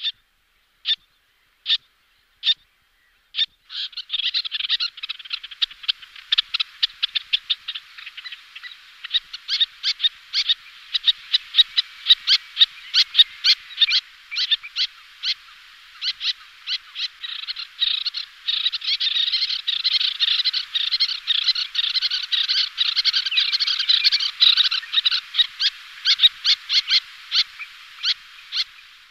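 Little terns calling: a few single sharp, high calls about a second apart, then from about four seconds in a dense, rapid run of chattering calls that keeps on.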